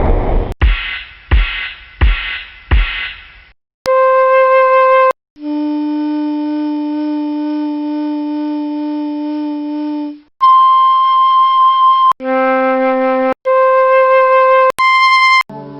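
Four drum hits about 0.7 s apart, each dying away, then a series of separate held wind-instrument notes, flute-like, one after another with short gaps. A lower note is held for about five seconds in the middle, and the run ends on short higher notes.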